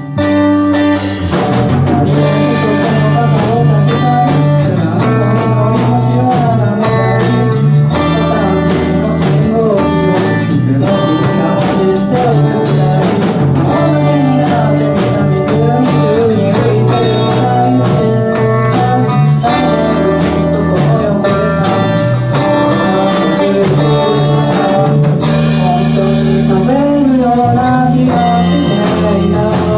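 Live band playing a song through a PA: electric guitars and a drum kit with a sung vocal, the drums hitting steadily from about a second in.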